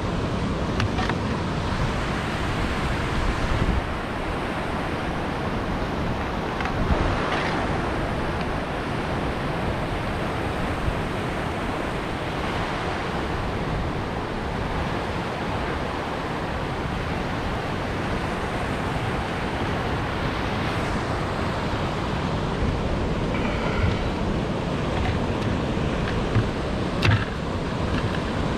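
Steady rushing of water from a whitewater channel, with wind on the microphone. A few light knocks come near the end.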